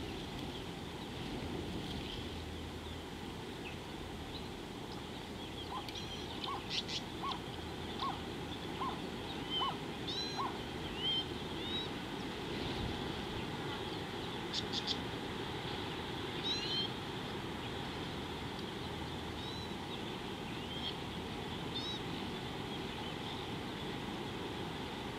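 Wild birds calling over a steady outdoor background hiss. A run of about seven short, evenly spaced low notes comes about three-quarters of a second apart, with scattered high chirps and a few sharp clicks through the middle.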